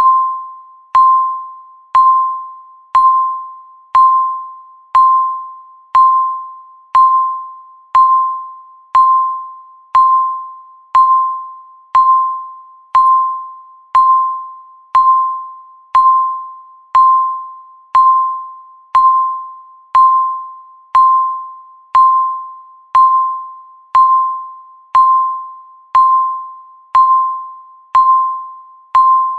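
Countdown timer beeping once a second, one per second left on the count. Each beep is a single high tone that starts sharply and fades away before the next.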